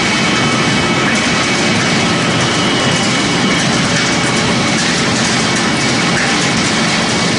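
Pellet making machine for corn stalk and sawdust running: a loud, steady mechanical noise with a few faint high whining tones over it.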